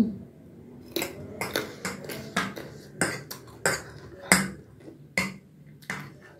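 Chewing a mouthful of instant noodles, with a metal fork and spoon clinking and scraping on a ceramic plate as noodles are twirled. Irregular sharp clicks, one or two a second.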